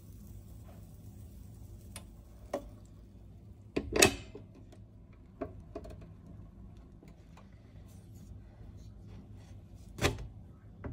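Kitchen handling sounds from a sandwich maker and silicone spatula: a few light clicks, a loud clack about four seconds in and another clack near the end, over a faint low hum.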